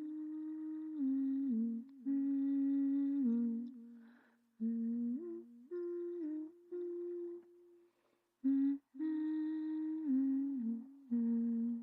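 A voice humming a slow, wordless melody in short phrases, each holding a note and stepping down in pitch at its end, with brief pauses between phrases.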